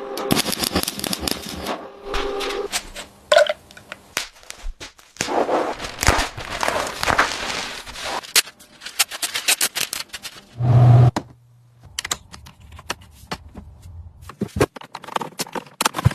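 An irregular string of sharp clicks, taps and scraping sounds from hand work. About eleven seconds in, a short low hum lasts about a second.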